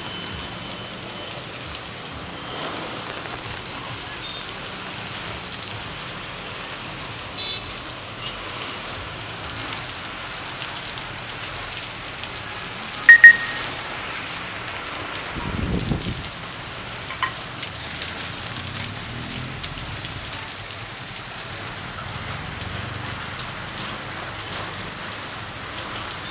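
Heavy rain pouring onto a paved street, a steady hiss. Short, loud high-pitched chirps cut through it about halfway in and again a few seconds later, with a brief low rumble between them.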